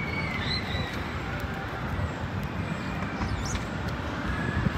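Outdoor background noise: a steady low rumble, with faint short high chirps about half a second in and again about three and a half seconds in.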